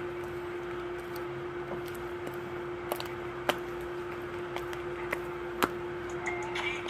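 A steady hum with a few sharp clicks and taps, several of them between about three and six seconds in.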